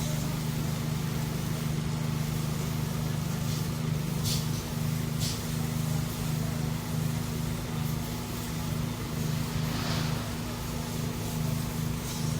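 A steady low mechanical hum, with a few brief faint higher noises over it.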